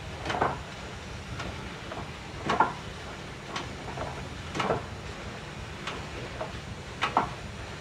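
Double-drum steam hoisting engine running slowly, its steam exhaust chuffing about once a second, every other chuff louder, over a steady low rumble.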